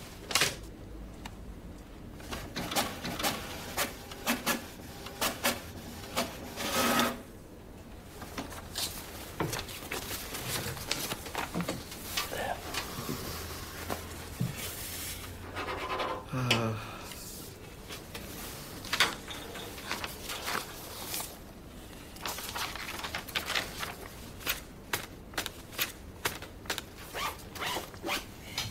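Ballpoint pen scratching on paper and sheets of paper rustling and sliding on a glass tabletop as documents are signed: irregular short scratches and rubs, with a couple of louder rustles about seven and sixteen seconds in.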